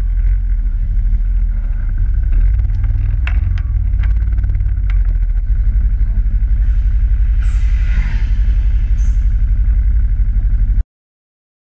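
Quad ATV engine idling steadily close by, with a few light clicks; the sound cuts off suddenly near the end.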